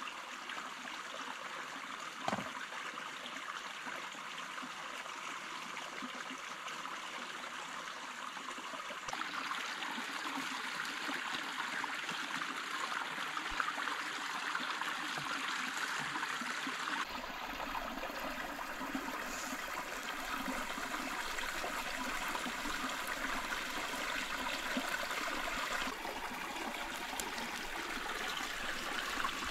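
A small rocky stream running and splashing over a little cascade, a steady rush of water whose loudness shifts a few times. There is one brief knock about two seconds in.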